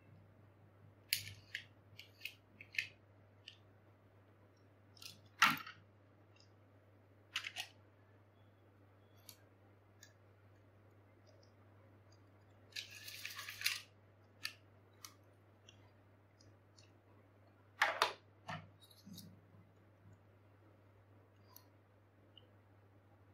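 Scattered light plastic clicks and taps from handling a spinning-top toy and its launcher, with a brief rattle lasting about a second a little past halfway. A faint steady hum lies underneath.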